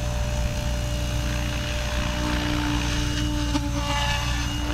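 SAB Raw 700 electric RC helicopter in a low hover: the main rotor blades drone steadily over the whine of the electric motor, and a higher steady tone joins about two seconds in. Its tail gyro gain is set too high in normal mode.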